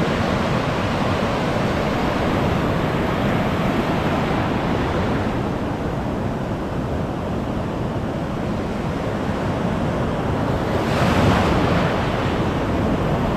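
Ocean surf washing in over a sandy beach, a steady rush of breaking waves and foam, with wind buffeting the microphone. Near the end a wave washes in close and the rush grows louder.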